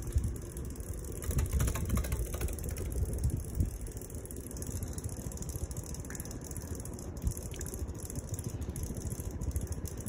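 Ceiling fan running at a higher speed, a steady whir from its motor and spinning blades over a low, uneven rumble.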